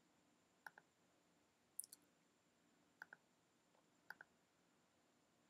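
Faint computer mouse clicks: four quick pairs of clicks about a second apart, each pair confirming a loop cut in Blender.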